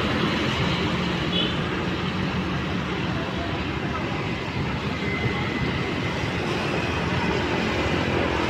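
Strong storm wind with heavy rain: a steady rushing noise that holds without a break.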